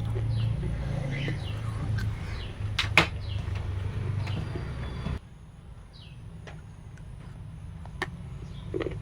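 Small birds chirping over and over above a steady low hum, with one sharp click about three seconds in. The hum cuts off abruptly about five seconds in, leaving the chirps over quieter background.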